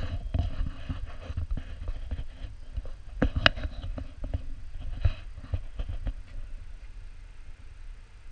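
Footsteps on paving stones, a run of irregular knocks and clicks, over a steady low rumble of wind on the microphone; one sharp knock stands out about three and a half seconds in.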